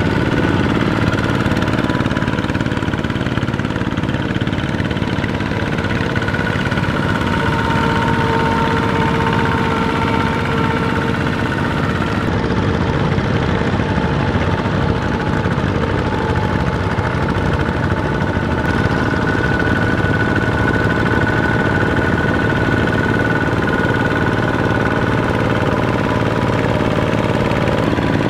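Single-cylinder Kubota ZT diesel engines of two-wheel walking tractors running steadily under load, a knocking chug with a slowly wandering whine on top, as their cage wheels work through a flooded rice paddy.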